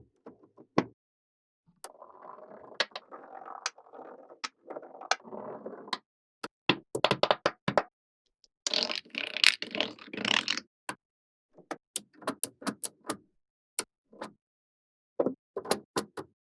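Small magnetic balls clicking sharply together, one snap after another at an irregular pace, with stretches of rattling and scraping as the balls slide and roll against each other; the loudest rattling comes about nine to ten seconds in.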